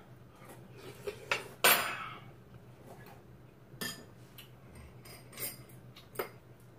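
Metal spoons clinking and scraping against ceramic soup bowls while eating: several short, sharp clinks, the loudest a little under two seconds in.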